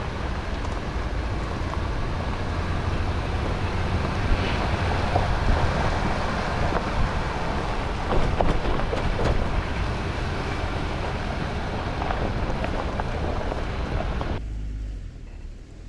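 Jeep Gladiator pickup driving at a steady pace: continuous road and tyre noise over a low engine hum, dropping away suddenly near the end.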